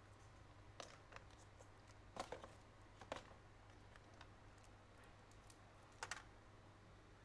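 Scattered light clicks and taps from small tools at a repair bench, about seven in all with a double tap near 2 s and another near 6 s, over a steady low mains hum.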